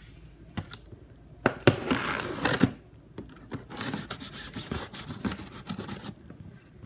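Folding pocket knife slicing through packing tape along the seam of a cardboard box: a few sharp taps, then a loud scratchy cut lasting about a second, followed by quieter scraping and rustling of the cardboard as it is handled.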